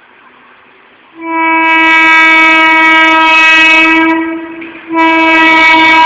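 WAP-4 electric locomotive's horn sounding two long blasts on one steady note, warning people at a level crossing. The first starts about a second in and lasts about three seconds; the second starts about five seconds in.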